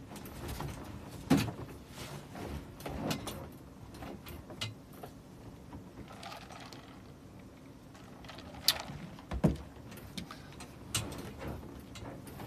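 Scattered clicks, taps and knocks of objects being handled close to the microphone, with a few sharper knocks, one early and two close together late on.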